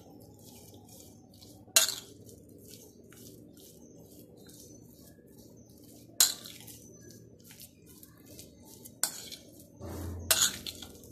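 Steel spoon stirring thick semolina and yogurt batter in a glass mixing bowl: a soft scraping with sharp clinks of metal on glass, the loudest about two, six, nine and ten seconds in.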